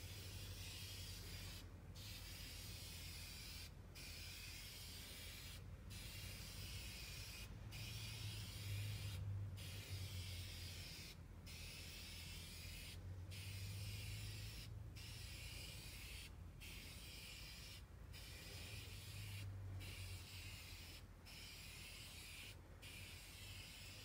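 Aerosol spray paint can hissing in long passes, broken by short gaps about every two seconds, over a low hum.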